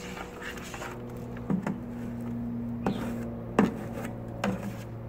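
Fast-setting cement being mixed in a plastic bucket with a trowel: scraping and stirring, with a few sharp knocks of the trowel against the bucket, the loudest about three and a half seconds in. A steady low hum runs underneath.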